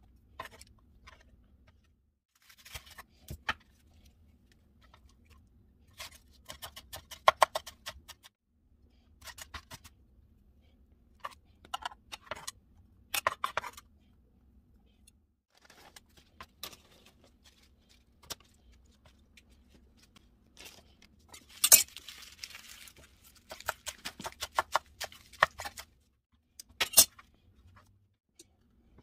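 Chef's knife chopping vegetables and herbs on a wooden cutting board in bursts of quick taps, with a longer scraping sound a little past two-thirds of the way through.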